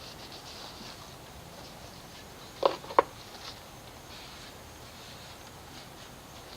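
Two quick clacks of hard objects knocking together, about a third of a second apart, over a faint steady hiss.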